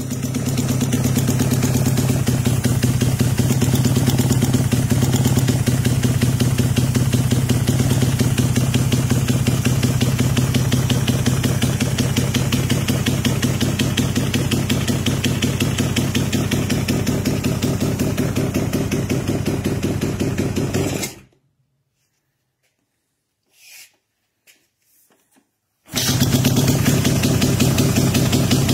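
2005 Kawasaki KX250F's single-cylinder four-stroke engine idling steadily through a DRD full exhaust. About 21 seconds in the sound stops abruptly, leaving a few seconds of near silence with a couple of faint small noises, and then the engine is running again near the end.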